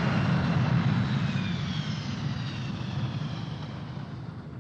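A low, steady rumble with a hiss and a few faint falling whistling tones, fading away and stopping just before the end.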